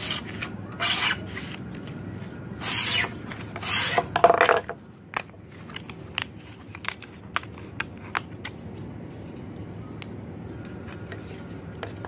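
Wooden marking gauge's cutter drawn hard along a thin, flexible mirror-finish sheet, scoring it: about five loud scraping strokes in the first five seconds, the last one lower and longer. After that, light clicks and ticks as the cut strip is worked free from the sheet.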